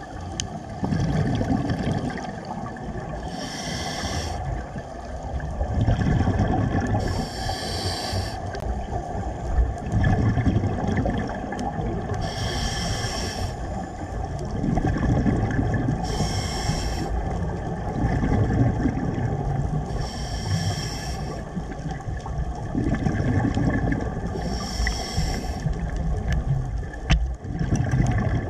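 Scuba diver breathing through a regulator, heard underwater. Each inhale is a short hiss, about every four seconds, and alternates with the low bubbling rumble of the exhale.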